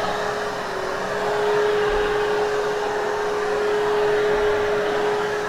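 Hoover Hushtone canister vacuum running steadily, a constant whine over the rush of air, as it is worked over a hair-matted carpet.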